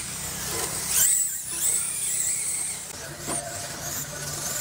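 Radio-controlled dirt oval race cars passing on a dirt track, their motors giving a high-pitched whine that rises and falls, over a hiss of tyres on dirt.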